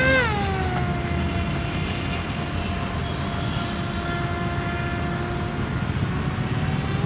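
Electric motor and air propeller of a homemade RC airboat, whining steadily. The pitch rises and falls back right at the start, holds level, and lifts slightly near the end, over a low background rumble.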